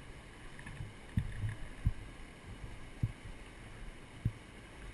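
Steady rush of river water with dull low thumps roughly once a second.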